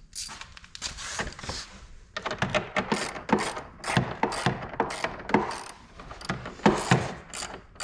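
Irregular clicks, knocks and rattles of hand work on an ATV's plastic fender and its mounting bolts: plastic and metal parts being pushed, fitted and handled.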